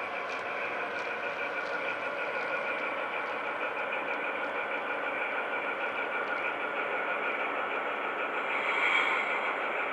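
Model HST's DCC sound decoder playing a Paxman VP185 diesel engine sound through the locomotive's small onboard speaker, running steadily as the train slows. A brief louder sound comes near the end.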